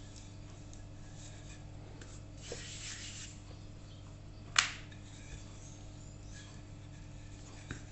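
Wooden rolling pin rolling flatbread dough thin on a flour-dusted board: quiet rubbing and rolling over a low steady hum, with one sharp knock a little past halfway.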